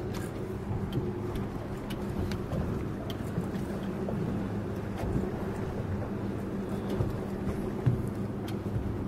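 Boat's outboard motor running at idle, a steady low hum, with a few light clicks and a dull knock near the end.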